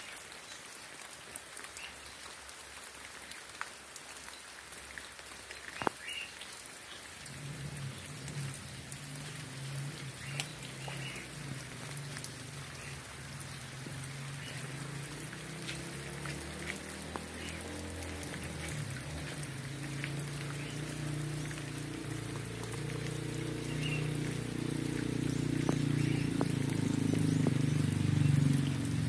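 Steady rain falling, with scattered individual drops ticking on a surface. From about seven seconds in a low, steady hum joins it and grows gradually louder toward the end, and faint short chirps recur every few seconds.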